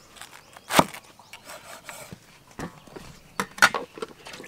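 A large kitchen knife cutting through a red cabbage and knocking against a wooden chopping block: one sharp chop about a second in, then a few lighter knocks near the end.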